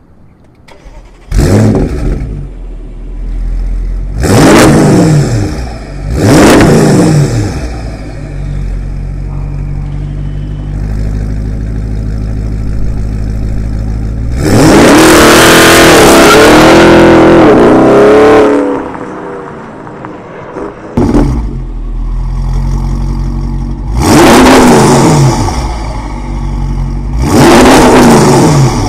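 Audi C7 S6's twin-turbo 4.0 V8 through an AWE Touring Edition exhaust with aftermarket downpipes: it fires up about a second in, then is revved in short throttle blips between spells of idle, with one long rev held for about four seconds in the middle and two more blips near the end.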